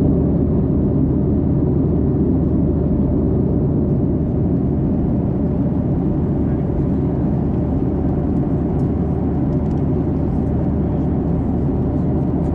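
Steady drone of a Boeing 737-800 heard from inside the passenger cabin in flight: engine and airflow noise, even and unchanging.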